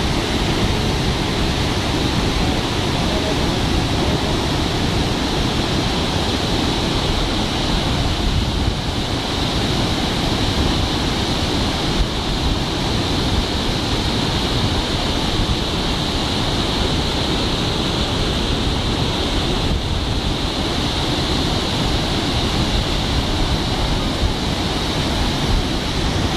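Purwa Falls in heavy flood, a great volume of muddy water plunging over the cliff into the gorge with a loud, steady rush of noise.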